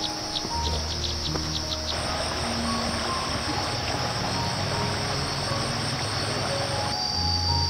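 Insects buzzing in a steady high drone, with a faster pulsing high chirp joining about two seconds in and dropping out near the end, over soft background music with long held notes.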